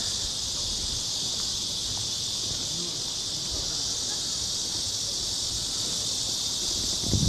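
Insects buzzing steadily in the trees, a continuous high shrill drone. There is a brief low thump near the end.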